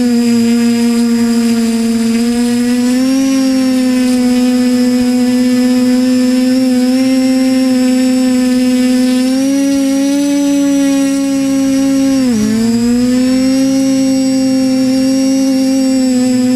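TBS Discovery Pro quadcopter's brushless motors and propellers whining steadily, heard close up from the camera on the airframe, the pitch shifting a little with throttle. About twelve seconds in, the pitch drops sharply and swoops back up.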